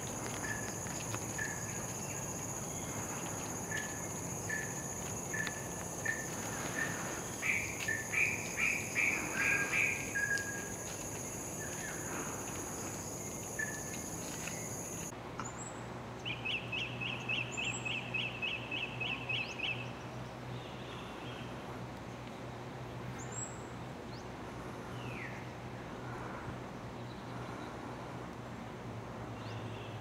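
Tropical forest birds calling: a series of short repeated notes in the first ten seconds, then a fast even trill lasting about three seconds a little past the middle. Under them runs a high steady buzz that cuts off abruptly about halfway through.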